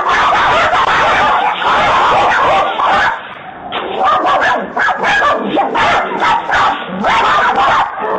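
Dog barking: a dense, continuous run of barks for about the first three seconds, then shorter separate barks.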